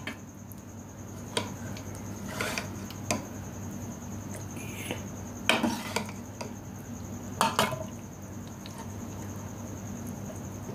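Kitchen utensils clinking and scraping against a baking tray as egg-and-vegetable batter is spooned into its cups: a handful of separate clinks spread out over several seconds, over a steady low hum.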